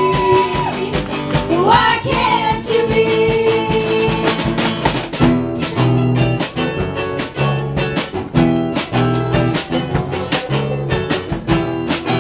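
Acoustic folk band playing live: strummed acoustic guitars, banjo and mandolin over a bass drum. Voices hold long sung notes in the first few seconds, then the instruments carry on alone in a steady strummed rhythm.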